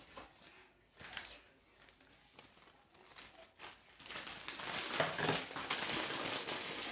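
Rustling and handling of a plastic piping bag: faint scattered knocks at first, then steadier, louder crinkling about four seconds in.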